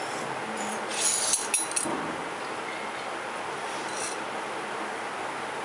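Tailoring scissors and fabric being handled: a brief cluster of sharp scissor clicks and scraping about a second in, then the cloth being smoothed by hand, over a steady background hiss.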